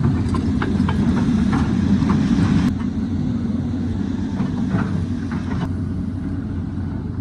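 Excavator's diesel engine running steadily with a low drone; a higher hiss over it drops away about two and a half seconds in.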